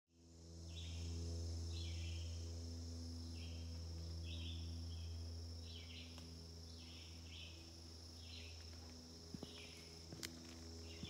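Insects in summer woodland: a steady high buzzing drone with short chirping calls repeated about once or twice a second. A steady low hum sits underneath, louder in the first half, and there are a few light ticks near the end.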